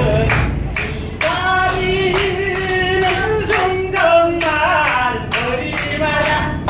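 Music: a song with a singing voice over a steady beat, about two strikes a second.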